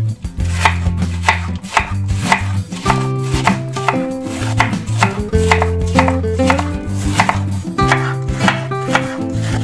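Chef's knife shredding a head of white cabbage on a wooden cutting board: quick, even strokes, about three a second, each slicing through the leaves and tapping the board.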